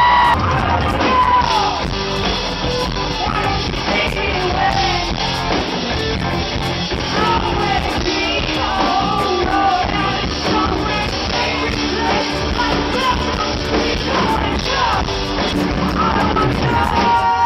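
Rock band playing with a singer over it.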